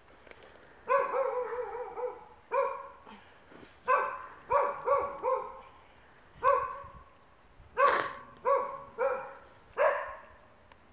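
A dog barking repeatedly, about a dozen barks in irregular bursts, the second one longer and wavering.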